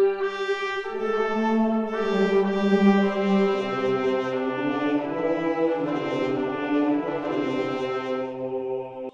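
Background music: slow, held brass chords that shift every second or two, stopping sharply just before the end.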